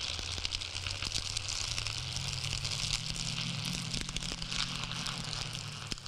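Dry straw of a small twine-bound broom crackling as it is twisted and rubbed between the hands close to the microphone: a dense, continuous crackle of many tiny snaps. A low steady hum lies underneath.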